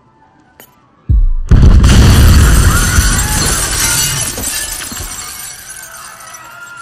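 Bomb explosion in a film's sound design: a low thud about a second in, then a very loud blast with shattering glass and debris that slowly dies away. Music plays underneath.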